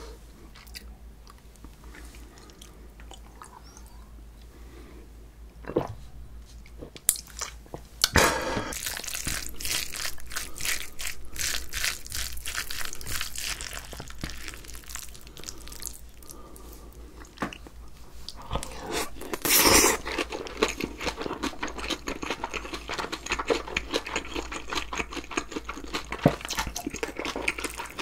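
Close-miked eating: loud, wet chewing and crunching of mouthfuls of spicy sea squirt noodles and rice with raw vegetables. It starts about eight seconds in, after a quieter stretch broken by a single tap, and gives a louder noisy burst a little before the middle.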